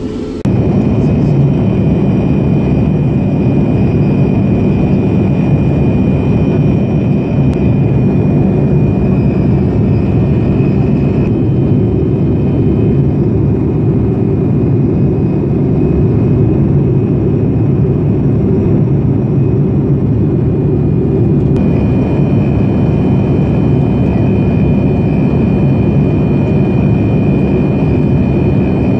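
Steady in-cabin noise of a Boeing 787 Dreamliner in cruise, heard by a window seat near the GE GEnx turbofan: a loud, even low rumble of engine and airflow with a thin steady whine on top. The upper part of the sound shifts slightly about 11 and 21 seconds in, at cuts between recordings.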